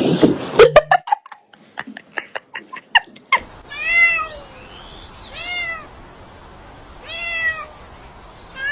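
A domestic cat meowing: four drawn-out meows about a second and a half apart, each rising then falling in pitch. Before them, in the first three seconds, a quick run of sharp clicks and taps.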